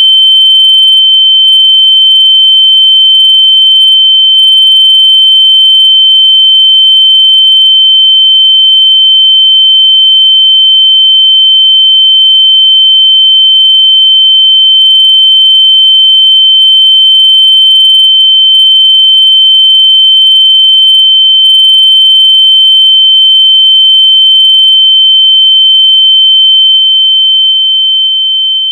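A single loud, steady, high-pitched pure tone, an electronic sine tone simulating the ringing in the ears of tinnitus. It begins to fade out near the end.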